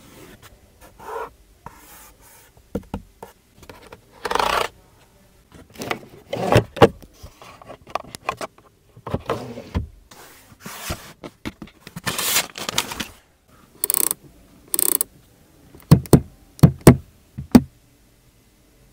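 A hand rubbing, scraping and tapping on the Geely Galaxy E8's interior trim, the leather-wrapped dashboard and console panels, in a string of separate rubs with a quick run of sharp knocks near the end.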